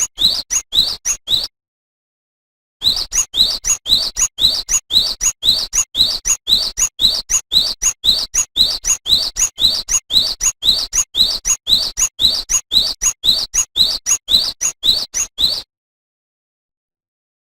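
Cinereous tit (gelatik batu) singing, a quick string of short, high, rising whistled notes at about two a second. A brief run is followed by a pause of about a second, then a long unbroken run that cuts off abruptly a couple of seconds before the end.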